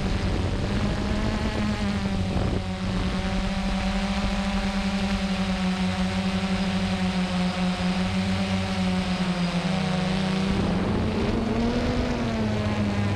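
A hexacopter drone's motors and propellers buzz steadily at a nearly constant pitch, which shifts slightly and briefly glides up and down about ten seconds in.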